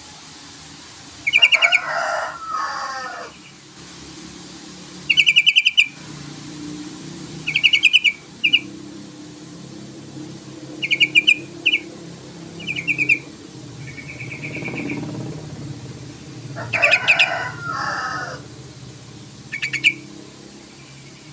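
Yellow-vented bulbul (trucukan) calling in short bursts of fast chattering notes, about nine phrases. Twice, about a second in and again near the end, a burst runs into a lower bubbling warble.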